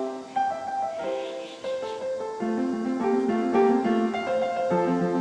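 Background music: a light keyboard melody of short, stepping notes.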